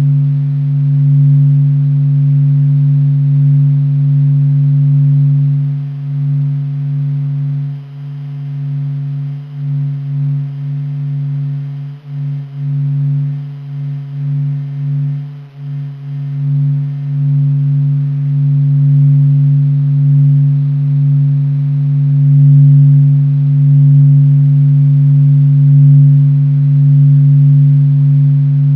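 Low, steady hum made from NASA's sonified solar data, the Sun's vibrations turned into sound. A deep tone carries it with a fainter one above. The level wavers and dips several times between about eight and sixteen seconds in, then swells again.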